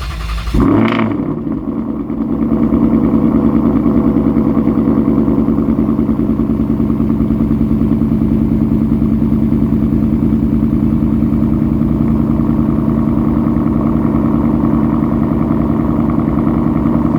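2019 Ford Mustang GT's 5.0-litre V8 running steadily, growing louder about two seconds in.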